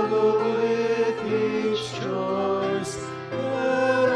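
Church praise team singing a worship song, in long held notes.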